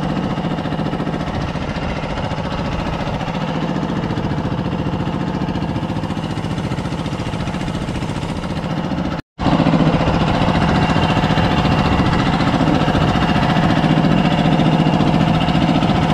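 Outrigger fishing boat's engine running steadily underway, with a fast, even pulsing beat. The sound cuts out completely for a split second about nine seconds in and comes back slightly louder.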